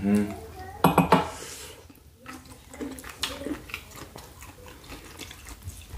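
Eating sounds: fingers picking shrimp and corn out of a metal baking tray of seafood boil, with scattered small clicks and taps against the tray. A short, louder sound comes about a second in.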